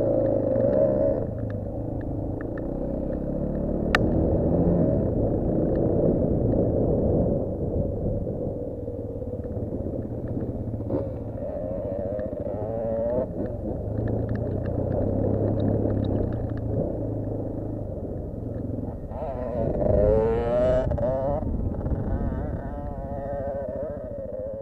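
Single-cylinder off-road engine running under load as the rider crosses rough ground, its revs rising and falling, with a louder wavering rev about twenty seconds in.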